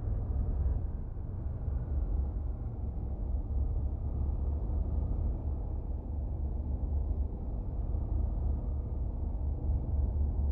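A steady low rumble with no speech or distinct events.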